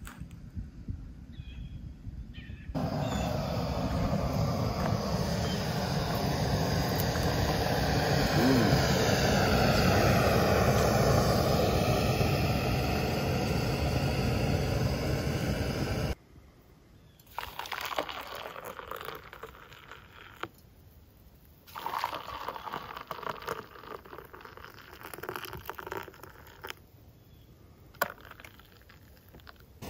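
A loud, steady rushing noise runs for about thirteen seconds and cuts off abruptly. Then come quieter clinks and hot water being poured from a metal camp pot into mugs.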